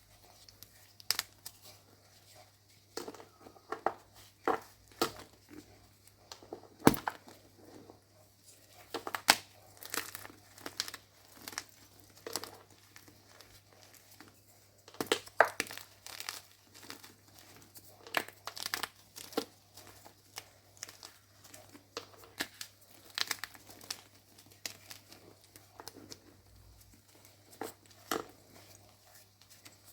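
Gym chalk blocks being crushed, giving irregular sharp crunches and crackles, some loud and others small and quick.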